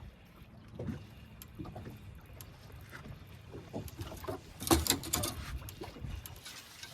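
Choppy water slapping against the hull of a fishing boat rocking in the wind, with scattered knocks and a louder clatter about five seconds in.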